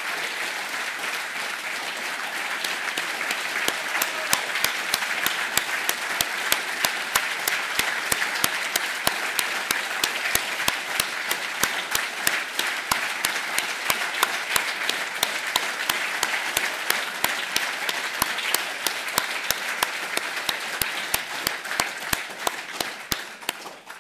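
Sustained audience applause at the close of a speech, with some sharp claps falling into a steady beat of about three a second a few seconds in; it dies away at the very end.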